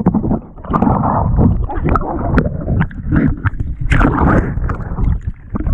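Water splashing and sloshing around a capsized sea kayak as swimmers try to flip it back upright, in irregular splashes and knocks, with wind buffeting the microphone.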